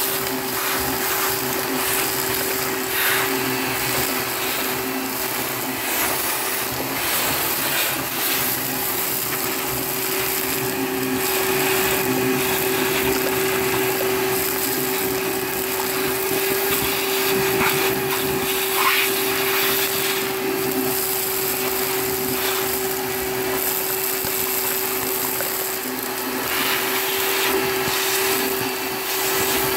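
Vacmaster shop vac running with a steady hum, its hose nozzle sucking dried chicken droppings off a coop ledge, with occasional faint ticks.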